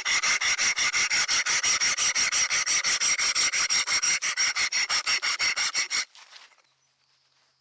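Hand file rasping rapidly back and forth on the steel of a freshly forged rebar knife blade, about seven even strokes a second, smoothing and shaping it; the filing stops abruptly about six seconds in.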